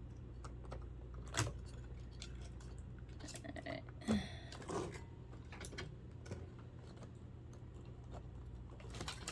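Scattered light clicks and taps of small plastic and metal parts being handled while a clock radio is pulled apart, over a steady low hum.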